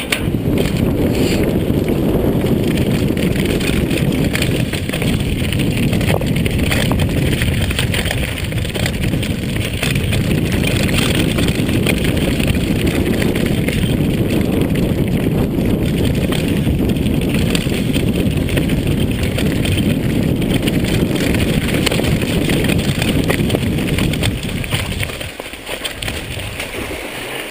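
Wind buffeting the microphone while a Jamis Dakar XAM mountain bike rides fast downhill on a dirt trail, with steady tyre noise and rattles and knocks from the bike over rough ground. It eases about 25 seconds in as the bike slows.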